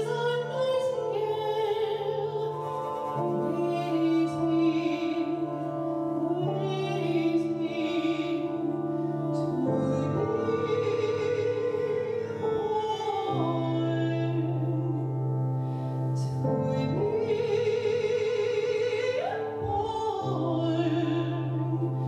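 Operatic soprano singing with wide vibrato over the low, sustained drone notes of a long-string harp. The drone moves to a new note every few seconds.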